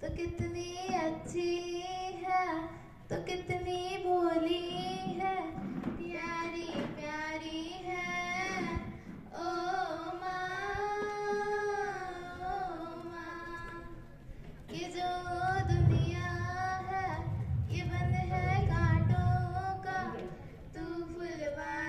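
Two young girls singing a song in long, held phrases. A low rumble sits under the singing for a few seconds past the middle.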